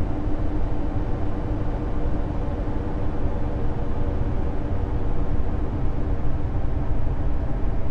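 Space "sound" of Jupiter or one of its Galilean moons, a sonified radio or plasma-wave recording: a steady, dense deep rumble and hiss with a faint steady hum running through it.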